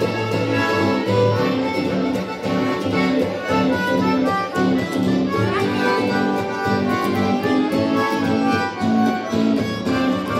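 Piano accordion playing a boeremusiek tune: a melody in the right-hand reeds over a steady rhythm of bass notes and chords from the left-hand buttons.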